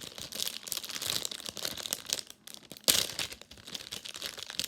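Plastic packaging crinkling as it is handled and torn open, with one sharp crack about three seconds in.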